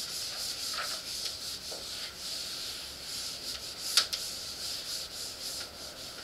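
Whiteboard eraser rubbing across a whiteboard in repeated wiping strokes, with one sharp knock about four seconds in.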